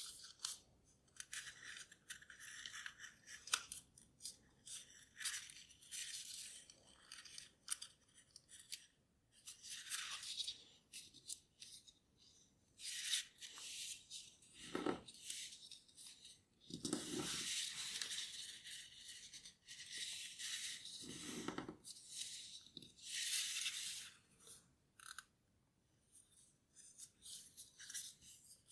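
Origami paper rustling and crinkling in short, irregular bursts as it is folded and creased by hand.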